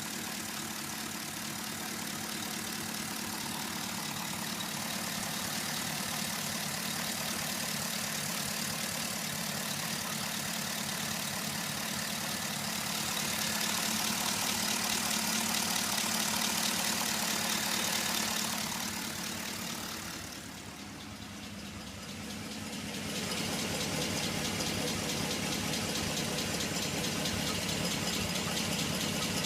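Pontiac G8 engine idling with a fast, even ticking from the valvetrain: lifter tick that is still there after the dealer installed new lifters. The sound dips in level for a couple of seconds about two-thirds of the way through.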